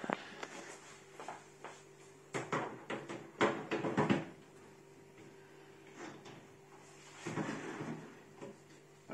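Parts of a Neff oven being handled during reassembly: a sharp click at the start, a run of knocks and rattles about two to four seconds in, and a scraping sound near the end.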